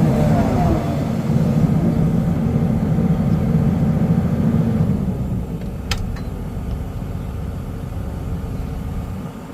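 SDLG excavator's diesel engine running with a steady hum, easing to a lower, quieter run about five seconds in. A single sharp click sounds about a second after that.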